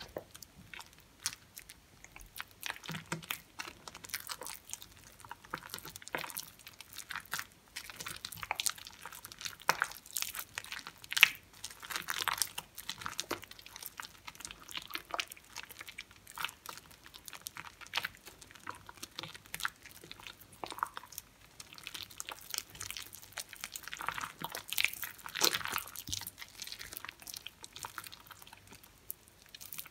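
Hands squeezing and kneading soaked, mushy recycled soap in a glass bowl. The foamy mush gives irregular wet squishing and crackling, with one louder squelch about eleven seconds in.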